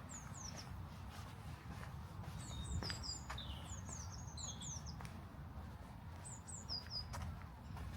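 Small songbirds chirping: bursts of quick, high notes that slide downward in pitch, coming in several groups over a steady low rumble.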